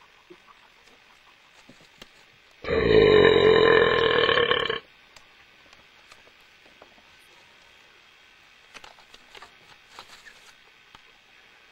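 One long, loud belch lasting about two seconds, a few seconds in. Faint clicks and light handling noises follow.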